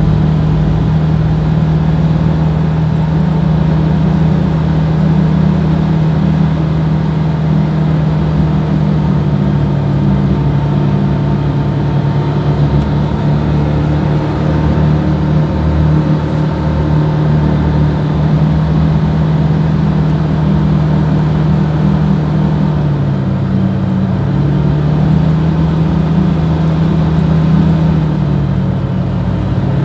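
Vehicle engine droning at a steady cruise over road noise, its pitch dipping briefly twice in the last third.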